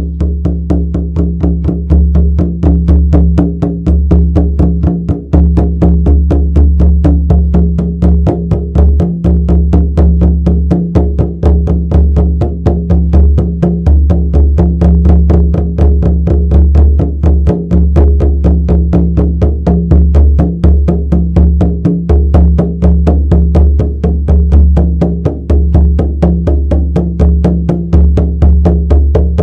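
Shamanic frame drum beaten in a rapid, steady, unbroken rhythm of several strokes a second, each stroke giving a deep booming tone.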